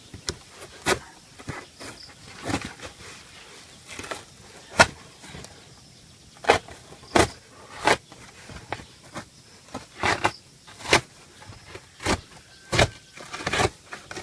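A string of irregular sharp knocks and clatters, about one or two a second, from something being handled.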